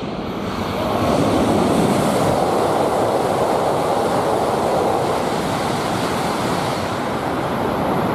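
E5+E6 series Shinkansen (Hayabusa coupled with Komachi) running past on the near track: a steady rush of air and wheel noise that swells about a second in and stays loud.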